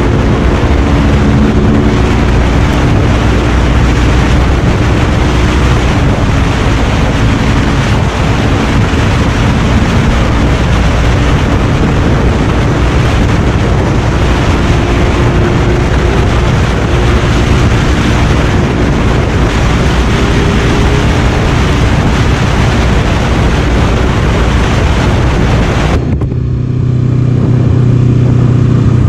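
Motorcycle ridden at highway speed, up to about 150 km/h: loud wind rush over the helmet microphone on top of the engine's steady high-revving note, which climbs slowly in the middle as the bike speeds up. About 26 seconds in, the sound cuts to a quieter, low engine note at slow street speed.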